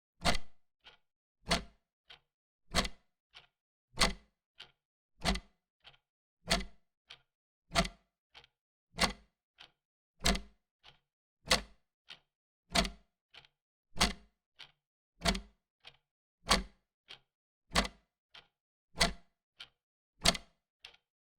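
Wall clock ticking in a clean, dry recording: an even tick-tock in which a loud tick about every second and a quarter alternates with a softer tick halfway between, with silence between the ticks.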